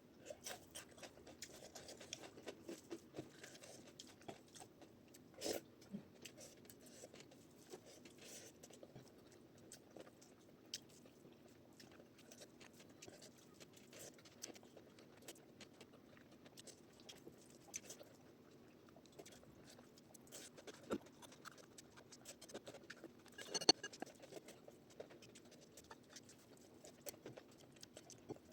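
Faint chewing and mouth sounds of someone eating rice and dal, with scattered small clicks and one sharper click near the end.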